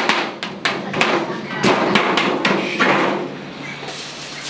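A hammer striking the handle of a screwdriver to punch holes through the thin sheet-steel top of an office cabinet. It makes a series of sharp, irregular metallic knocks over the first three seconds or so, and the sound is quieter near the end.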